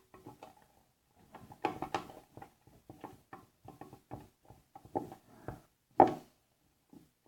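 Scattered light taps, clicks and rustles of hands handling small objects at close range, irregular and without any steady rhythm.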